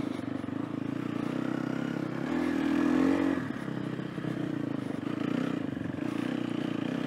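Sherco enduro motorcycle engine running while being ridden at low speed. The revs rise for about a second, around two and a half seconds in, then ease back and hold steady.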